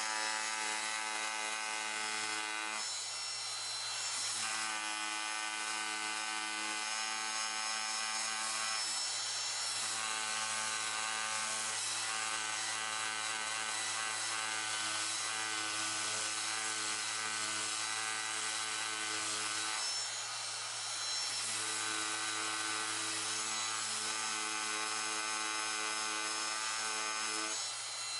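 Random orbital sander sanding paint and primer on a cracked plastic car bumper, working down to the bare plastic. It runs with a steady whine over a low hum, and the whine breaks off briefly and changes pitch a few times.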